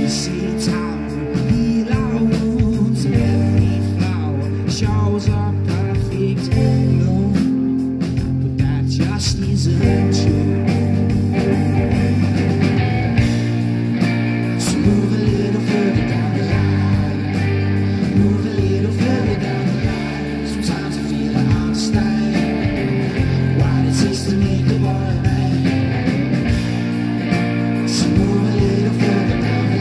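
Live rock band playing a song: electric guitar, bass guitar and drum kit, with a singer's voice. The band's sound fills out about ten seconds in.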